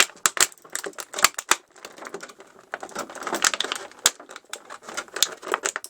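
Rigid plastic blister tray crackling and clicking as an action figure is pried out of it: an irregular run of sharp clicks and crinkles.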